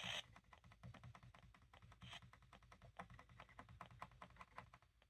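Faint, quick, irregular clicking of the tuning buttons on an Emerson SmartSet clock radio, pressed again and again to step the FM dial toward 94.5, with a brief burst of hiss at the very start.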